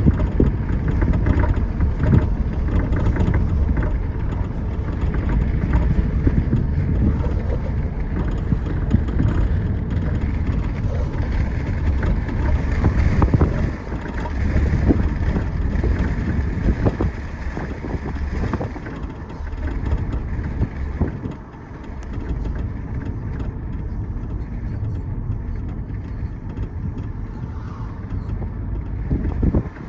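Low steady rumble of a 2011 Audi A5 Quattro with scattered short clicks from the rear passenger-side suspension, a fault the owner suspects is the upper shock mount or the sway bar.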